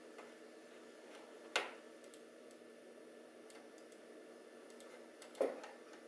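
Two sharp clicks from working the computer, about four seconds apart, with a few fainter ticks between them, over a faint steady hum.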